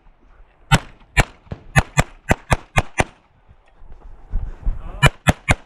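Pistol shots fired in quick strings during a USPSA stage: about nine rapid shots, a pause of about two seconds with low rumbling movement noise, then another fast run of shots near the end.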